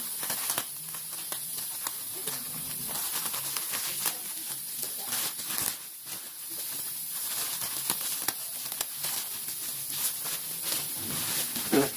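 Thin plastic mailer bag crinkling and rustling as it is snipped open with scissors and handled, a steady run of crackly rustles.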